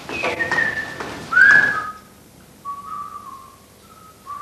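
A person whistling a halting tune of short held notes that step up and down, the loudest a rising, arching note about a second and a half in.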